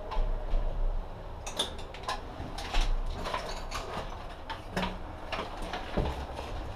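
Footsteps and the irregular clicks and knocks of an airsoft player's gear and rifle being handled as he moves, over a low rumble.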